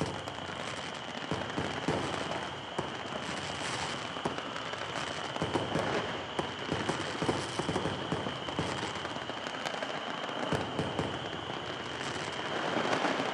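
A fireworks display: many fireworks bursting at once in a dense, continuous barrage of crackling pops and bangs.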